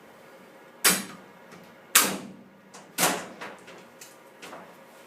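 Metal-on-metal clanks of an M240 machine gun's barrel assembly being fitted onto the receiver: three sharp clanks about a second apart, each ringing briefly, with a few lighter clicks between.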